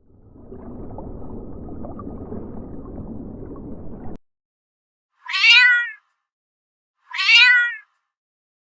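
A domestic cat meowing twice, two loud calls about two seconds apart, each dropping in pitch at its end. Before them comes a few seconds of low, rough noise that stops suddenly.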